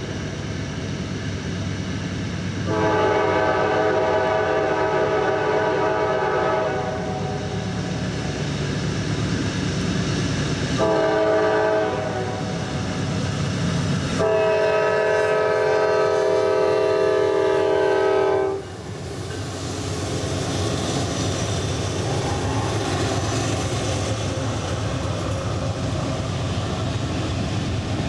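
Norfolk Southern freight's diesel locomotives approaching with engines running while the lead unit sounds its multi-note air horn in three blasts: long, short, long. The horn cuts off, and then the double-stack container cars roll past with steady wheel-on-rail noise and clacking.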